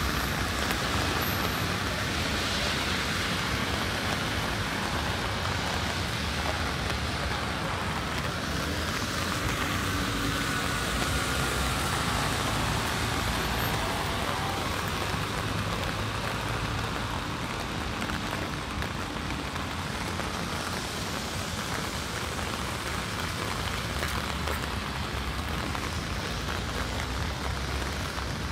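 Steady rain falling on a city street, with car traffic passing on the wet road.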